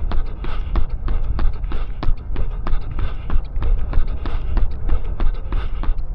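A runner's footfalls at a steady tempo pace, about three strides a second, over a steady low rumble.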